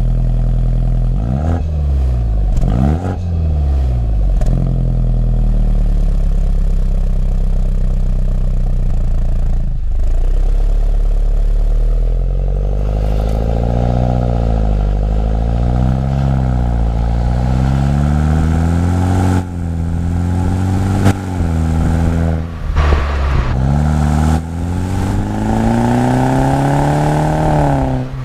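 BMW 125i's B48 turbocharged 2.0-litre four-cylinder through a full M140i cat-back exhaust, revving: a few quick blips near the start, a steadier stretch, then revs rising and falling in waves. About two-thirds of the way through there are brief breaks and a few short sharp cracks, and near the end the revs climb for several seconds before dropping.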